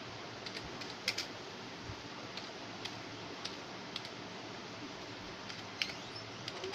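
Computer keyboard keys clicking as someone types slowly, one key at a time, with irregular gaps of about half a second between keystrokes, over a steady background hiss.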